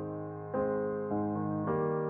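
Background piano music, with new notes struck about every half second and left to ring and fade.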